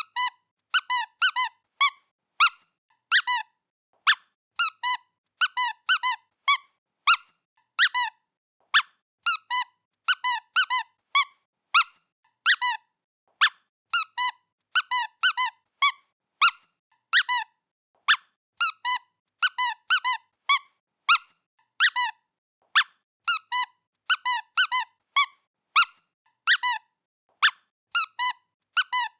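Squeaky pet toy squeaked over and over in short, high squeaks, often two in quick succession, roughly one to two a second, with dead silence between.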